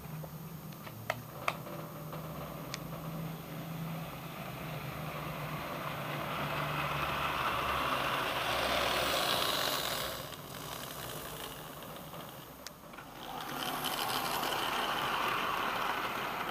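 Model railway train running on its track: a whirring, rattling run that swells as the train passes close by, drops away briefly, then swells again as it comes past a second time. Two sharp clicks about a second in.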